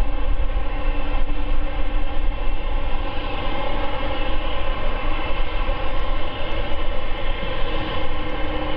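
Four General Electric GEnx-2B turbofans of a Boeing 747-8F freighter running at low power while the jet turns slowly on the ground. The sound is a loud, steady jet whine made of many fan tones over a deep rumble.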